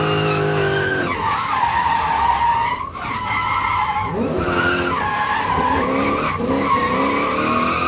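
Car engine revving up and down, with tyres squealing.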